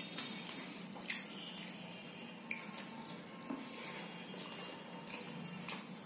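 Wet hand-eating sounds of rice and dal: fingers squelching the food on the plate and the mouth smacking while chewing, with a few sharp clicks scattered through, over a low steady hum.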